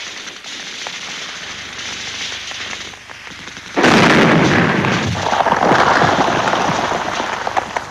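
War-film battle sound: scattered crackling shots, then a sudden loud blast about four seconds in whose noise rolls on for about three seconds before fading.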